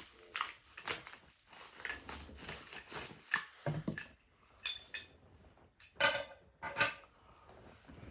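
Gear being unpacked and handled: a scattered series of short clicks, taps and rustles, with a few sharper clinks and knocks.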